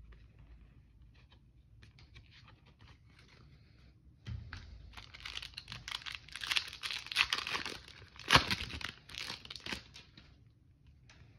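Light clicking of trading cards being handled, then the foil wrapper of a trading card pack torn open and crinkled for several seconds, with one sharp crack partway through.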